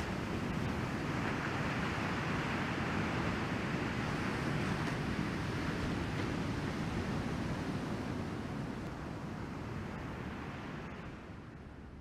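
Ocean surf washing steadily onto the beach, mixed with wind on the microphone, as an even rushing noise that fades near the end.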